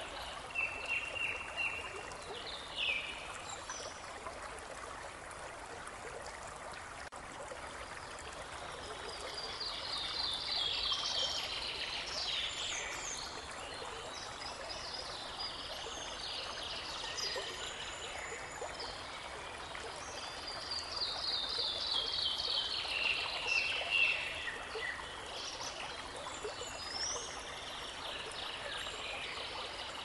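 Babbling brook running steadily, with songbirds singing over it: short chirps in the first few seconds, then two longer songs of quick notes falling in pitch, about ten seconds in and again about twenty-two seconds in.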